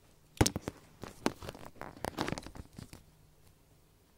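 Rustling and crinkling handling noise close to the microphone: a quick run of short crackles and scrapes starting about half a second in and stopping about three seconds in.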